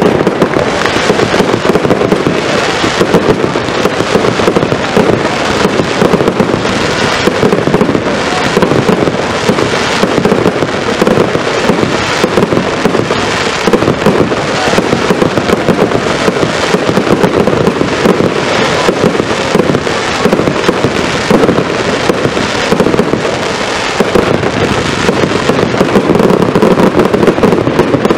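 Zena consumer fireworks in a non-stop barrage: rapid launches and bangs follow one another without a pause, and it grows a little louder in the last few seconds.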